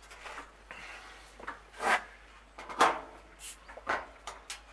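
Handling noise: a string of short rustles and knocks as objects are moved about on a grill side table, the two loudest about two and three seconds in.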